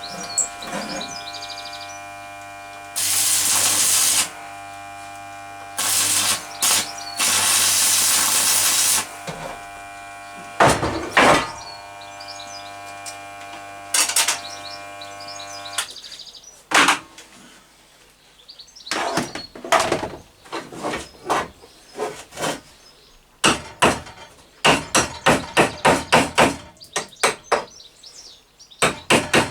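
Ball-peen hammer striking metal: scattered blows, then a fast run of about four strikes a second near the end. Before the hammering, a steady machine-like hum with two long bursts of loud hiss stops about halfway through.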